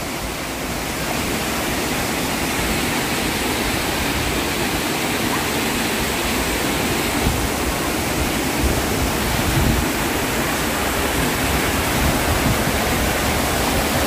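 A waterfall and the rocky mountain stream below it rushing steadily, a little louder from about a second in.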